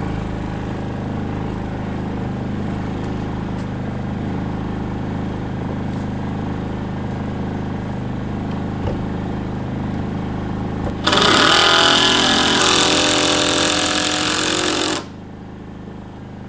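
A power tool running steadily, with a much louder, harsher stretch from about eleven to fifteen seconds in.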